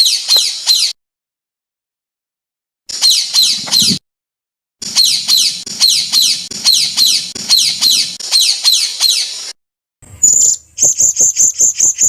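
Songbird song spliced from recordings, with abrupt cuts to silence between phrases: a rapid run of high, downward-sweeping notes at about three a second. About ten seconds in it switches to a different bird's rapid series of short, piercing high notes.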